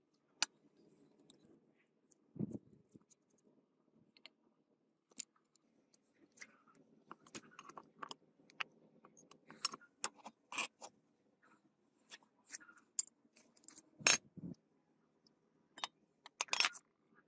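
Scattered metallic clinks, taps and knocks as a rusty truck air compressor cylinder head and a steel rod are handled on wooden blocks. The loudest knocks come about fourteen seconds in and again near the end.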